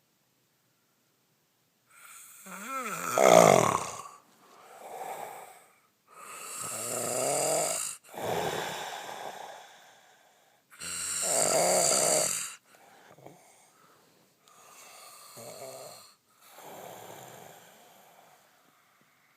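A man snoring loudly with his mouth open: a string of long, drawn-out snores and breaths a second or two apart, starting about two seconds in. The loudest are in the first two-thirds, and the later breaths are fainter.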